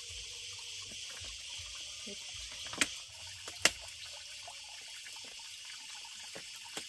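Steady background hiss, with two sharp clicks less than a second apart near the middle; the clicks are the loudest sounds.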